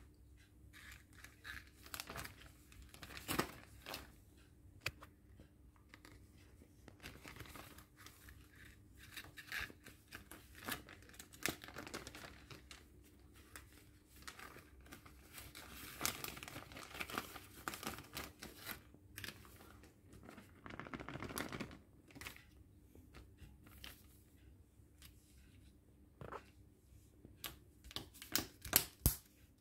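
Thin plastic zip-lock bag crinkling and rustling as a folded paper towel is slid inside, with a quick run of sharp clicks near the end as the zip seal is pressed shut.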